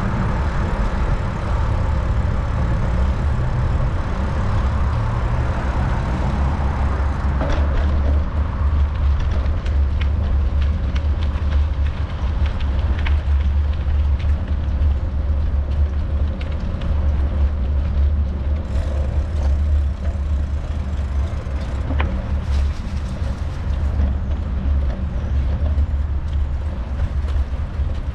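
Wind buffeting the microphone of a camera on a moving bicycle: a steady low rumble. Road traffic noise sits under it in the first several seconds, and a few light knocks come through later.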